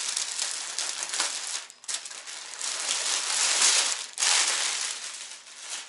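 Clear plastic clothing bag crinkling as it is handled and pulled off a folded child's outfit, in uneven rustles that fade near the end.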